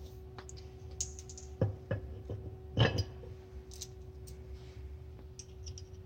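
Scattered clicks and metallic knocks of hand tools and bracket hardware being worked on the truck's suspension, a cluster of sharper ones between about one and three seconds in, over a steady hum.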